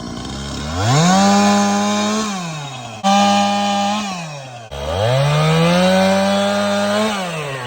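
Two-stroke chainsaw run up from idle to full throttle three times, holding its high pitch for a second or two each time before dropping back, as it cuts through wood.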